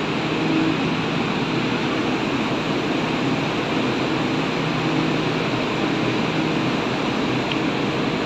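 Steady rushing noise with a faint low hum on the open deck of a ship under way: the ship's machinery and ventilation mixed with wind and sea wash.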